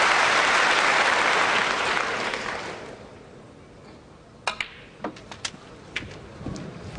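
Audience applause fading out over the first three seconds. Then a snooker shot: a run of sharp clicks of the cue tip and the balls about four and a half to six seconds in, as a red is potted.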